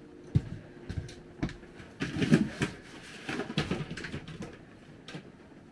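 Light knocks and clatter of household items being handled and set down, with rustling as things are moved in a box and cabinet.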